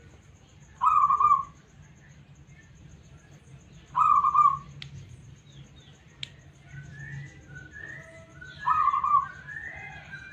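Zebra dove cooing: three loud, short coo phrases, each about half a second long and roughly four seconds apart. From about two-thirds of the way through, a quicker series of higher, rising notes runs alongside.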